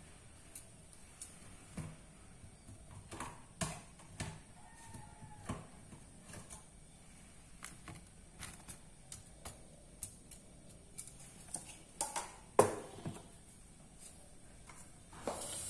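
Scattered light clicks and taps of metal tongs and fried tempeh pieces against thin plastic takeaway containers, with one louder knock about two-thirds of the way through.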